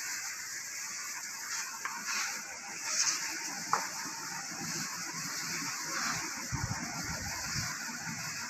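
Steady background hiss with a few faint clicks and knocks.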